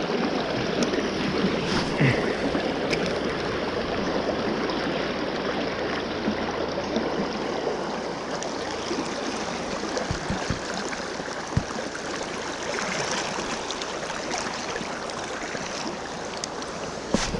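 River current rushing steadily around a wading angler, a fast-flowing stretch of water. A few brief low knocks come about ten to twelve seconds in.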